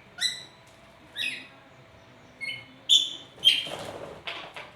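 A nuri parrot calling: a string of short, shrill, whistled calls about a second apart, coming closer together after the middle and ending in a few harsher, rasping squawks.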